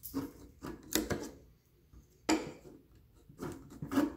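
Tin snips cutting the edge of a thin ABS plastic shell: a handful of sharp, irregular snips spaced about a second apart.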